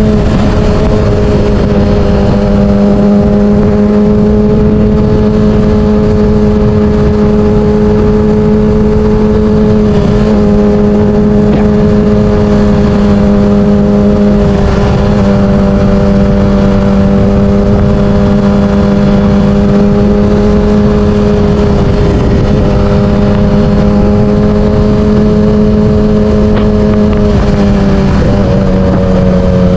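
Yamaha R6 inline-four sportbike engine running at a steady high pitch while riding, easing off slightly a few times and dropping in pitch near the end. Wind buffets the microphone underneath.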